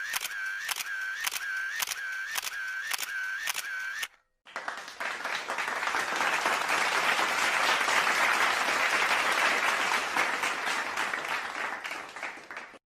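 Camera shutter clicking about twice a second for four seconds. After a short gap comes a round of applause that swells and then fades away over about eight seconds.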